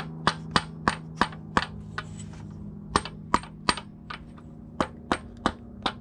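Hammer blows on a deep steel socket, tapping a new camshaft oil seal evenly into the cylinder head of a 3.5-litre DOHC V6. Each blow rings sharp and metallic, in three quick runs of about three blows a second with short pauses between.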